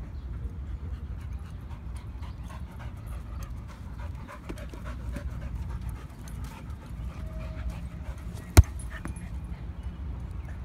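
American bulldog panting after chasing a soccer ball. About eight and a half seconds in there is a single sharp thump, the loudest sound, as the ball is kicked.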